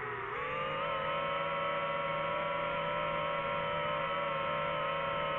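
DJI FPV drone's motors and propellers whining. The pitch drops sharply just after the start, then holds steady.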